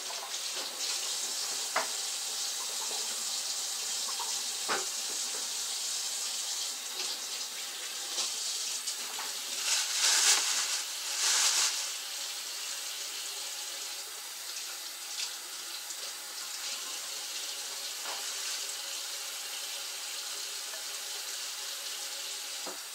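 Kitchen faucet running into the sink as hands and beef ribs are rinsed under the stream, a steady splashing that swells louder twice around the middle.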